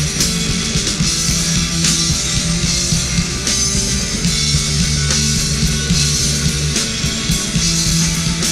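Rock band playing an instrumental passage between sung lines: electric guitar, bass and drums with cymbal hits, without vocals.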